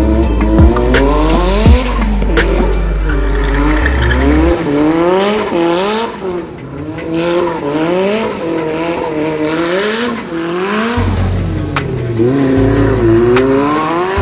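A drift car's engine revs up and down over and over as it slides, along with tyre squeal. There are a couple of sharp pops in the first two seconds.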